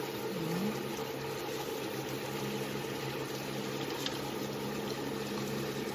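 Shrimp simmering in butter-garlic sauce in a pan, a steady sizzling bubble, with a low steady hum underneath.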